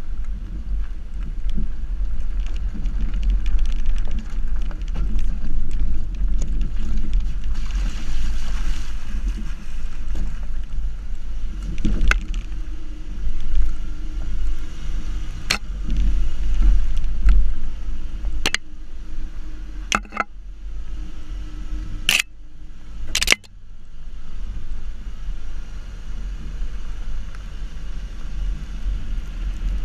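Subaru XV driving along a dirt track, heard from a camera mounted low by the front wheel: a steady heavy rumble of wind on the microphone and tyres on dirt. About half a dozen sharp knocks come through the second half, two of them close together just past the middle.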